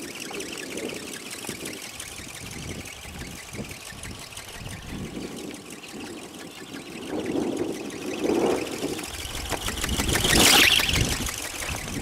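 Strong wind buffeting the microphone in irregular gusts, with the loudest rushing gust about ten seconds in.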